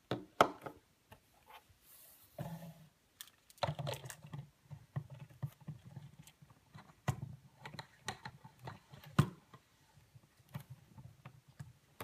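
Hands handling the plastic parts of a small-pet water bottle on a tabletop: a small bowl is set down, then a plastic cap with a metal drinking nozzle is screwed onto a plastic bottle. The handling gives irregular clicks, knocks and rubbing, with the sharpest knocks near the start and about nine seconds in.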